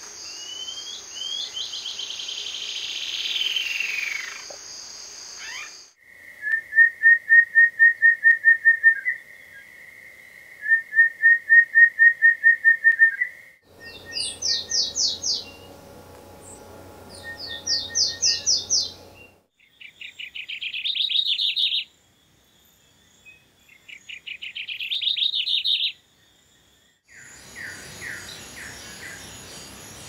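A string of separate field recordings of Amazonian understory bird songs, including bluish-slate antshrike and golden-bellied warbler, played one after another. First a few falling whistled notes over a steady high insect buzz, then two rapid, even trills, then several quick series of sharp high notes; each recording cuts off abruptly.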